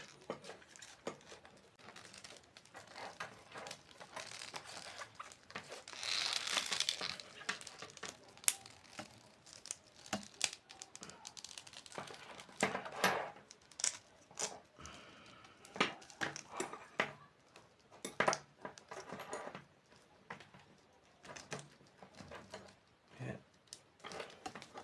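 Hands working a thin aluminium sheet clamp and cables: irregular crinkling and rustling with scattered light clicks and taps of metal.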